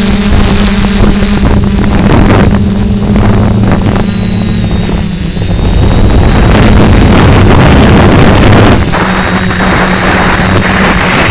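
DJI F450 quadcopter's motors and propellers buzzing steadily in flight, the hum shifting in pitch about halfway through, with wind buffeting the onboard camera microphone in irregular gusts.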